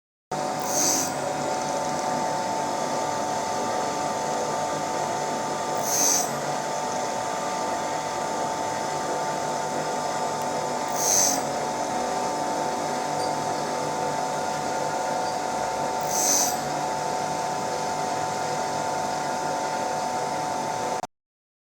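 Motorcycle camshaft copy machine running with a steady high-pitched motor whine and a short hissing grind about every five seconds. The sound cuts off suddenly near the end.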